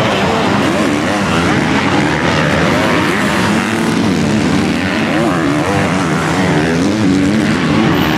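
Several MX2-class motocross bikes racing round the track, their engines revving up and down together, the pitch rising and falling repeatedly as the riders accelerate out of corners and over jumps.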